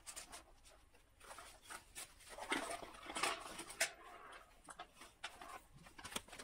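Hands handling and opening small electronics packaging: irregular rustling with sharp light clicks and taps, busiest about halfway through.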